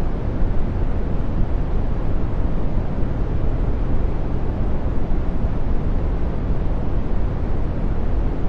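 Smooth brown noise: a steady, deep, soft hiss, strongest in the bass and fading off toward the treble.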